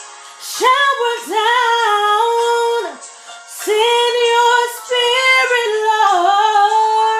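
A woman singing a worship song solo, in two long phrases of held notes with a short breath about three seconds in.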